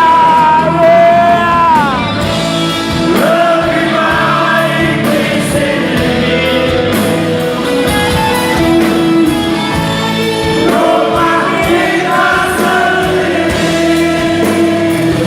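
Live rock band music: a long held note slides down about two seconds in, and the band plays on with sustained chords.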